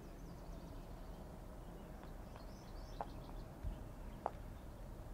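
Quiet outdoor ambience with a low rumble, a few faint high bird chirps about halfway through, and three or four light ticks.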